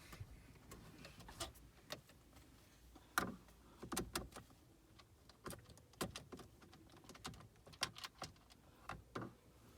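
Scattered light clicks and taps of a screwdriver working small screws out of a car's dashboard trim, with metal and plastic parts knocking now and then.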